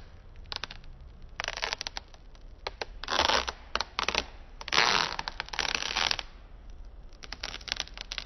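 Clear protective plastic film being peeled off the lens of a new LED tow-mirror light, crinkling and crackling in a series of uneven bursts, the longest about five seconds in.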